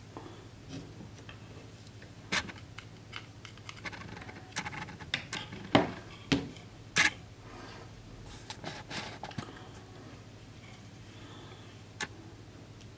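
Handling noise from a smartphone with a USB flash drive plugged into it, on a wooden desk: a scatter of short clicks and knocks as it is picked up, handled and set back down, loudest in the middle, with one more click near the end. A faint steady low hum runs underneath.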